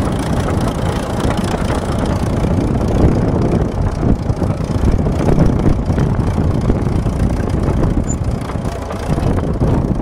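Engine of a 1955 Fordson County crawler tractor running steadily while the crawler drives along.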